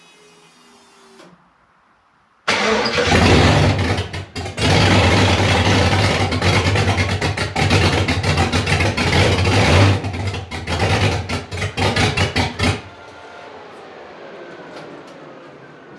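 Freshly rebuilt 5.3-litre V8 cranked over and firing about two and a half seconds in, running loud and uneven for about ten seconds with a brief stumble early on, then cut off suddenly. The owner is unsure it is running on all cylinders.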